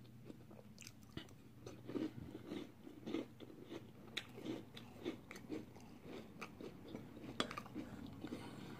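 A person chewing a mouthful of frosted brown sugar cinnamon Pop-Tarts cereal in milk with the mouth closed: faint, steady crunching at about two chews a second.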